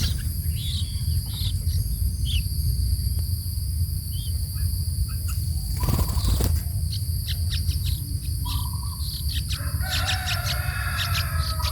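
Short, scattered bird chirps over a steady high insect drone and a low rumble. There is a brief rustling noise about six seconds in, and a longer bird call with several pitches near the end.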